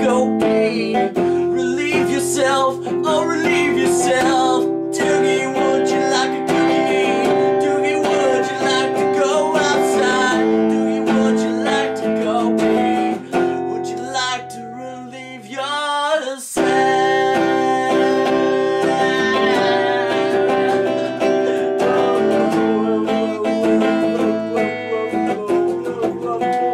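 Steel-string acoustic guitar strummed in chords, with a wavering voice singing along over it. The strumming thins out briefly about fifteen seconds in, then picks up again.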